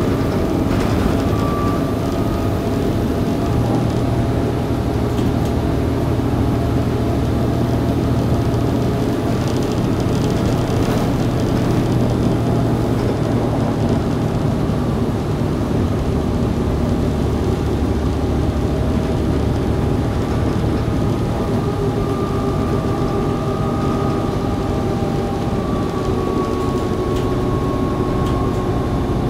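Volvo B7TL double-decker bus running on the road, heard from inside the lower deck: the six-cylinder Volvo D7C engine and drivetrain give a steady low drone, with a faint whine that comes and goes.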